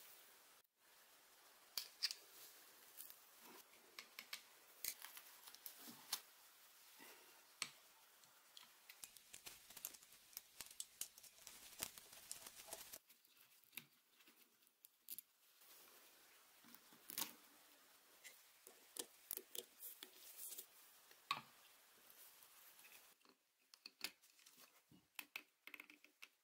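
Irregular small clicks and taps of plastic and metal parts being handled and fitted as an electric drill's housing is put back together.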